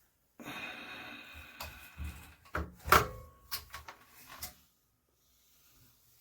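Objects being handled: a rustle lasting about a second, then a string of sharp knocks and clacks. The loudest knock comes about three seconds in, and the sounds stop about four and a half seconds in.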